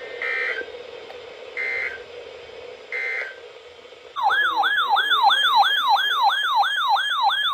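Three short bursts of the warble of emergency-alert data tones, the SAME end-of-message code that closes the warning, then about four seconds in a loud electronic siren-like tone that sweeps up and down about three times a second.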